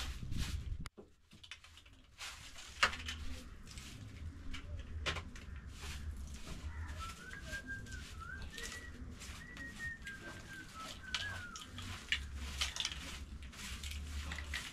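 A bird calling: a run of short whistled notes that rise and fall, starting about seven seconds in and lasting some four seconds, over a low rumble with a few sharp knocks.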